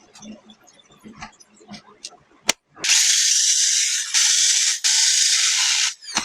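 0810 electric demolition hammer run-tested after its 6201 and 608 bearings were replaced: a few light clicks and knocks of handling, then about a second and a half in the motor runs in three short bursts of loud, high-pitched mechanical noise lasting about three seconds in all.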